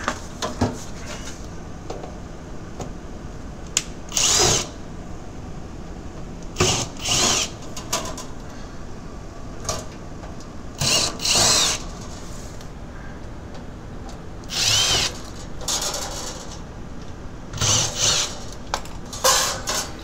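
Cordless drill/driver backing screws out of a refrigerator's sheet-metal back plate, running in about eight short whirring bursts of under a second each, some in quick pairs.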